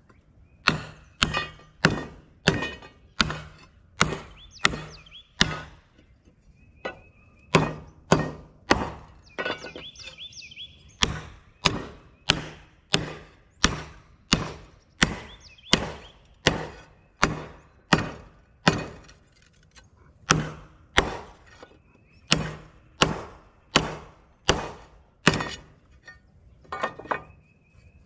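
Hammer blows on steel, steadily about two a second with a couple of short pauses, now and then leaving a brief metallic ring: a bent steel steering-line guard from a backhoe's front axle being beaten straight.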